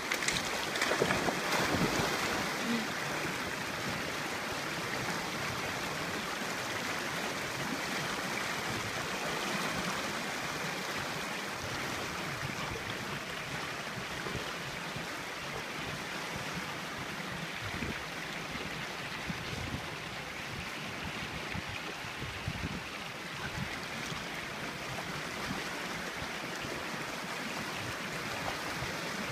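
Steady rushing of a river flowing over rocks, a little louder in the first couple of seconds.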